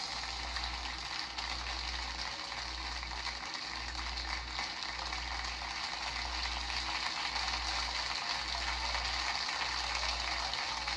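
Steady hiss like static, with a low hum that throbs about once a second.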